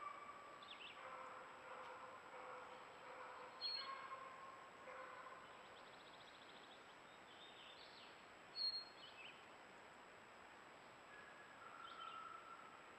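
Quiet woodland ambience with faint bird calls, and two short, sharp high chirps, one a little under four seconds in and another near nine seconds.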